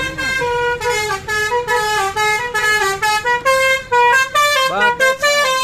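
Bus melody horn (telolet) playing a tune of steady tones that jump from note to note several times a second.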